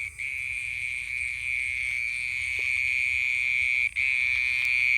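A steady, high-pitched trill coming from under the ground, breaking off briefly near the start and again about four seconds in.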